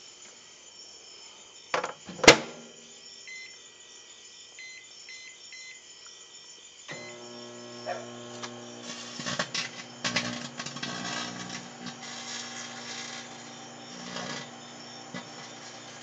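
Microwave oven door clicking shut, a few short keypad beeps, then the oven starting with a steady hum about seven seconds in. From about nine seconds the Sony Ericsson cellphone inside crackles and pops as it arcs and catches fire.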